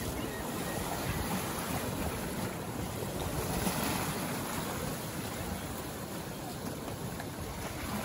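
Waves washing and splashing against a rocky shore, a steady rushing with a stronger splash about halfway through.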